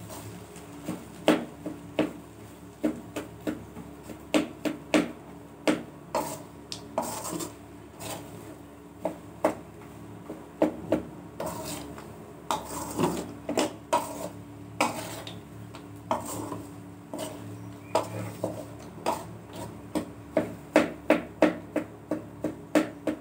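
A spatula scrapes and knocks against the sides of an aluminium pot as cooked rice is stirred and mixed, in irregular strokes that quicken into a run of knocks near the end.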